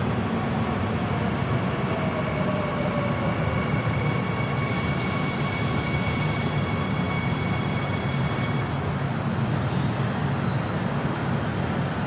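Subway train running with a steady rumble and faint electric motor whine, one whine falling in pitch near the start. A hiss lasting about two seconds comes in about four and a half seconds in.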